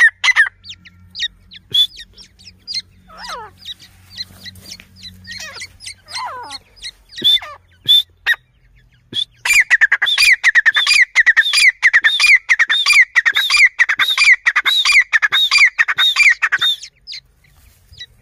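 Grey francolin calling: scattered harsh notes and a couple of falling calls, then, about halfway through, a long run of rapid, repeated harsh notes that stops near the end.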